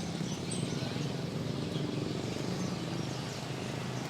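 Market ambience: caged birds chirping faintly over a steady low hum and background murmur.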